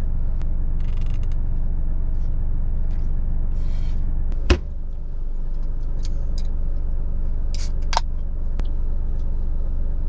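Steady low rumble of an idling truck engine heard from inside the cab, with a sharp click about four and a half seconds in and a smaller click near eight seconds.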